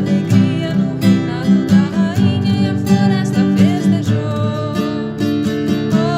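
Music: an acoustic guitar strummed in a steady rhythm, with a wavering melody line over it.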